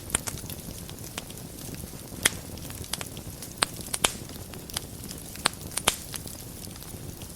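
Wood fire burning in a fireplace: a steady low rumble of flames with irregular sharp crackles and pops, the loudest a little over two seconds in and a cluster around four to six seconds.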